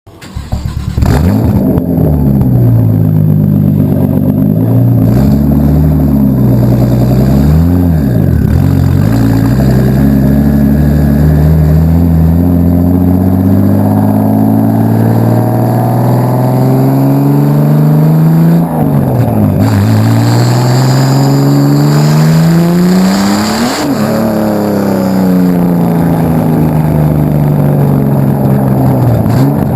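Nissan RB25 Neo turbocharged straight-six revving through a 3.5-inch stainless straight-through exhaust: a few quick blips of the throttle, then the revs climb slowly and drop off sharply, and climb again before easing back down.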